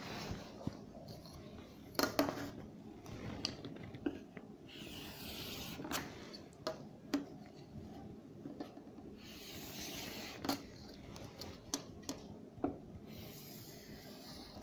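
Handwriting: pen strokes scratching and rubbing on a writing surface, with scattered sharp taps and clicks.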